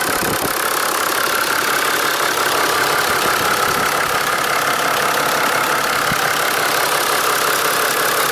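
Toyota 1HD-T 4.2-litre turbo-diesel straight-six idling steadily after a cold start, heard up close in the engine bay.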